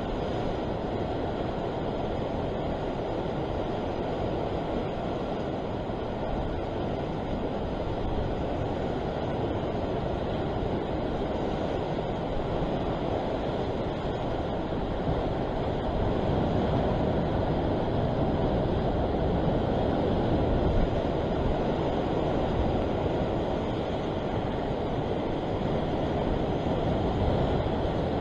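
Steady wash of sea surf breaking and swirling against the rocks below, mixed with wind buffeting the microphone, swelling slightly about halfway through.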